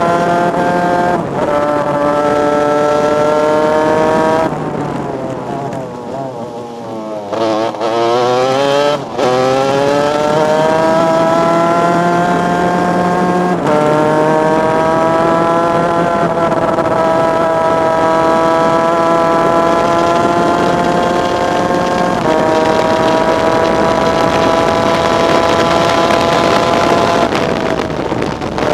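Superkart's two-stroke racing engine heard onboard, accelerating hard with its pitch climbing steadily in each gear and stepping down at every upshift. About four seconds in it goes off the throttle for a few seconds, the note falling and wavering as the kart slows, then picks up sharply around nine seconds and pulls up through three more upshifts before easing off near the end.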